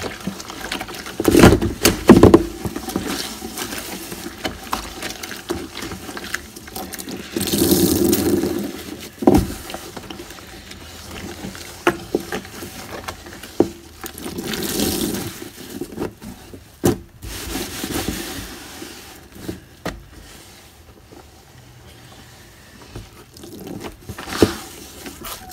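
Water splashing and swishing in a bathtub as a hand rinses cleaning paste off the tub floor, with scattered sharp knocks and scrapes against the tub. The swishes come in irregular bursts, the loudest about two seconds in, and grow quieter near the end.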